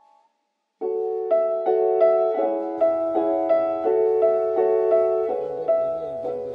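Background piano music: after a moment of silence, a steady run of notes about three a second, softening near the end.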